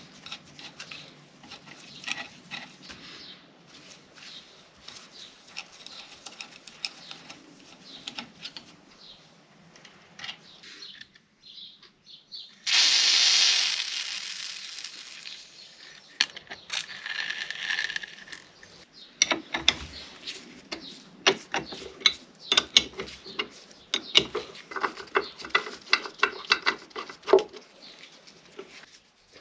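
Metal clicking and clattering of hand tools working on a bench vice, with a loud hiss lasting about three seconds roughly a third of the way in, then a quick run of ratchet-like clicks and knocks.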